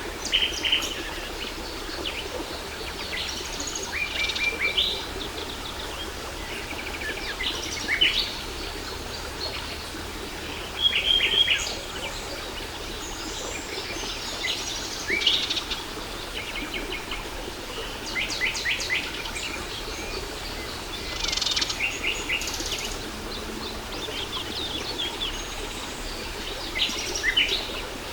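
Birds chirping and trilling in short repeated phrases over the steady rush of a waterfall.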